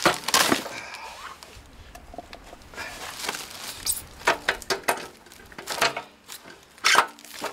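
Steel floor jack being handled and shifted in its cardboard box: a handful of sharp metallic knocks and clinks, scattered irregularly, some ringing briefly.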